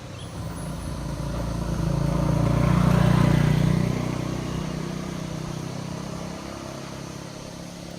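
A motor vehicle passing by: its engine grows louder, is loudest about three seconds in, then slowly fades away.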